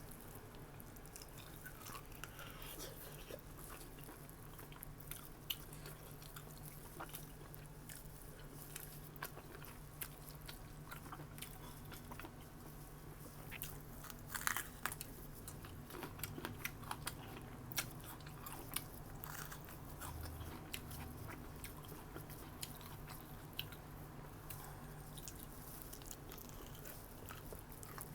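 A person chewing and biting food close to the microphone, with irregular clicking mouth sounds, a denser run of them about halfway through. A steady low hum runs underneath.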